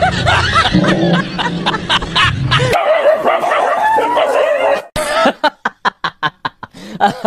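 A dog barking and yelping over scuffling noise, then a wavering whine for about two seconds. Near the end comes a rapid run of laugh-like pulses, about four a second.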